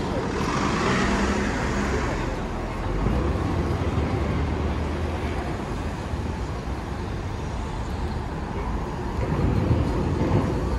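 Steady city road traffic: motor vehicles passing with engines running and tyres on the road, a little louder near the end.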